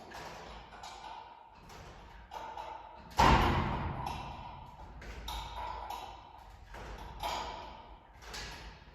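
A series of irregular knocks and taps, each trailing off in a short ring, the loudest about three seconds in.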